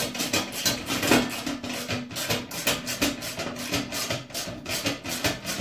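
Screwdriver turning metal screws to fasten a motorcycle seat base plate to its steel holder: a fast, steady run of small scraping metallic clicks as the screws are driven in.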